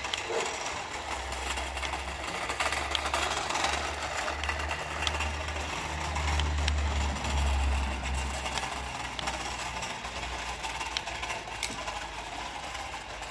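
Double E Mercedes-Benz 1:26 RC truck driving over concrete paving stones: its small brushed electric motor running and its wheels rolling, with a few light clicks. Under it runs a low rumble that swells about six to eight seconds in.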